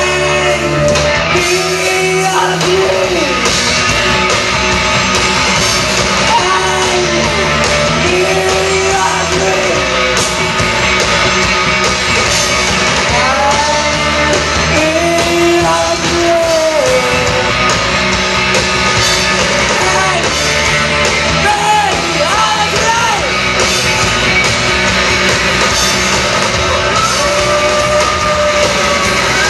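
A band playing live with a singer, loud and without a break, the singer holding long notes over the full band.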